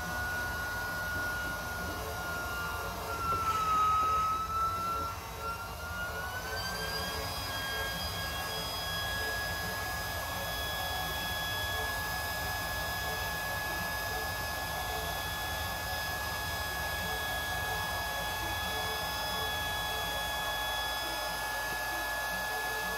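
Small battery-powered portable air pump running steadily as it inflates an inflatable kayak, a constant motor whine. Around four seconds in the whine dips in pitch and gets louder, then rises back and holds steady.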